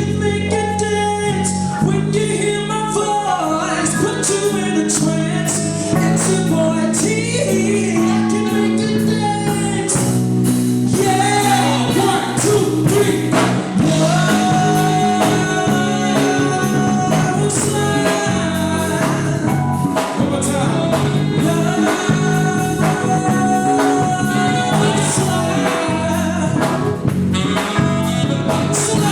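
Live band playing a soul/R&B song with singing over bass, keys and drums; the arrangement fills out about ten seconds in.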